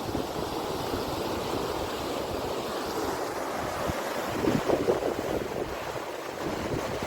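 Floodwater of the swollen Malir river rushing steadily, with wind buffeting the microphone in irregular low gusts, a little stronger about two thirds of the way through.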